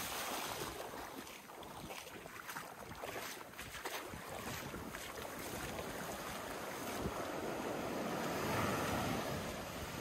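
Small ocean waves breaking and washing up over sand at the water's edge, with wind buffeting the microphone. The rush of water swells to its loudest near the end.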